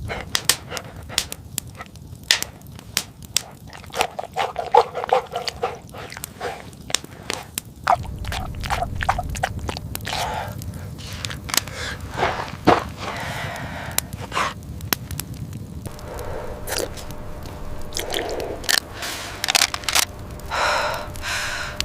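Irregular crunching and scraping with many sharp clicks and cracks, over a low steady rumble from about a third of the way in, and a short pitched sound near the end.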